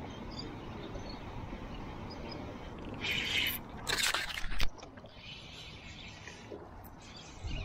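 Steady wind rumble on the microphone. About three seconds in comes a brief hiss, then a loud sharp knock about a second later as a spinning rod is cast. A softer hiss follows.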